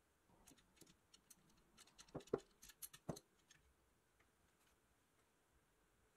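Faint clicks and light metal knocks from a screw clamp being worked against a pressed-steel toy biplane while it presses a rubber wheel onto the axle. The clicks are scattered over the first few seconds, with the loudest knocks about two and three seconds in.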